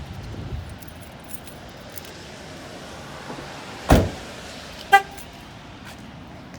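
A car door shuts with a single thump about four seconds in, followed a second later by a short horn chirp as the car is locked. Steady outdoor background noise runs under both.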